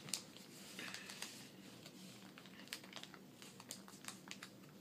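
Sheet of paper being folded by hand into an origami boat: faint rustling and crinkling in irregular short crackles.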